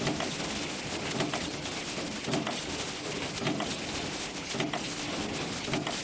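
Power punch press stamping cabinet-hinge arms in its die, with a sharp knock at each stroke about once a second, over steady machine noise.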